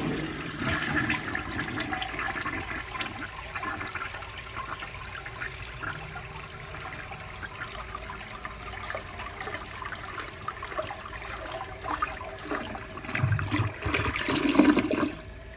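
1957 Eljer Waco toilet flushing with the handle held down: water rushes from the tank into the bowl, with louder surges in the last couple of seconds before it dies away. The flush is weak and uneven; the owner says it still flushes weird.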